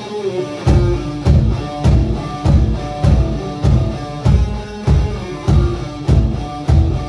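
Live rock band playing a heavy rock song: a guitar riff, then, under a second in, drums and bass come in with a heavy, even beat of about three hits every two seconds.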